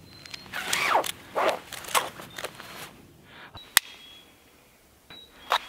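Webbing belt and wire saw being handled and swung: several swishing rubs in the first two seconds, then a single sharp click about halfway through and a couple of fainter clicks near the end.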